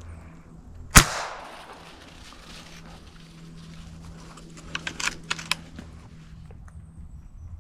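A single loud, sharp crack about a second in, fading quickly, then a quick run of lighter clicks and snaps a few seconds later.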